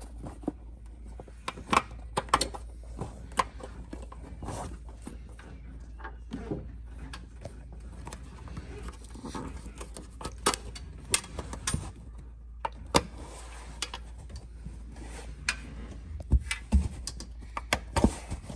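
Small metal D-rings and clips on a canvas hood clicking and rattling as they are handled and clipped up by hand, with irregular sharp clicks, over a low steady hum.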